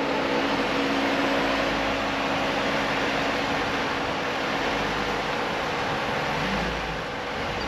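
Jeep Wrangler Rubicon crawling up a rock ledge, its engine running steadily under an even hiss.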